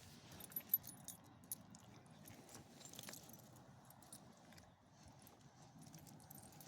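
Faint, light metallic jingling with a few soft clicks.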